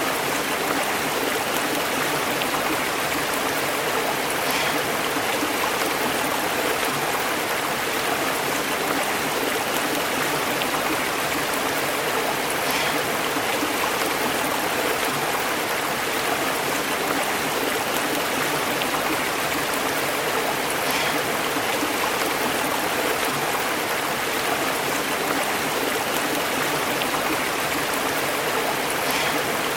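A stream burbling and bubbling over rocks: a steady, even rush of flowing water.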